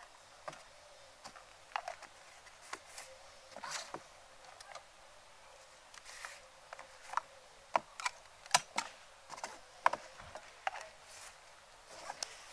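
Camping gear being handled and set out: a run of separate clicks, knocks and light scrapes of small objects, the sharpest two close together about two-thirds of the way through.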